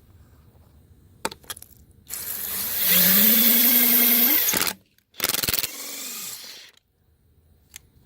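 Impact gun spinning a Counteract stud cleaner onto a rusted beadlock stud: the motor spins up with a rising pitch, runs loud for about two and a half seconds and stops. A shorter, quieter run follows and winds down as the cleaner is backed off in reverse.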